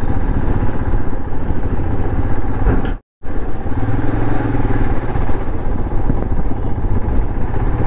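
Motorcycle engine running while riding, heard under heavy low rumbling wind noise on the microphone. The sound drops out completely for a moment about three seconds in, then carries on the same way.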